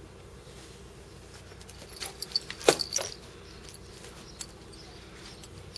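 A cat brushing and bumping against the camera, a brief cluster of rustles and knocks about two seconds in, then a single faint click.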